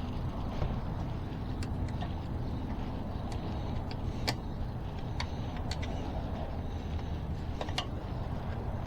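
Steady low rumble with scattered light clicks and taps of metal parts being handled on a bicycle wheel.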